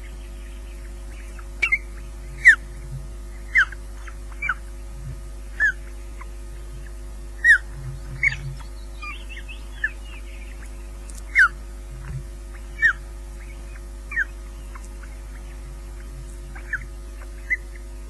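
Osprey calling at the nest during a feed: short whistled chirps, each sliding down in pitch, repeated every second or two. A steady electrical hum runs underneath.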